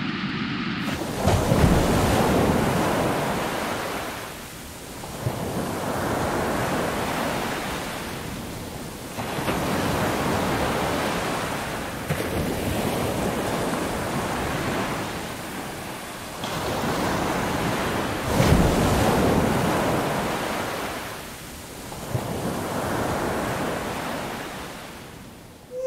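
Sea waves breaking on a shore, the surf swelling and falling back every four seconds or so.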